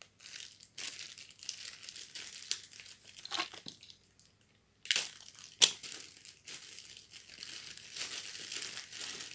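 Clear plastic bag crinkling and crackling as a coiled headphone cable is handled and unwrapped from it. There is a short lull about four seconds in, then two sharp loud crackles.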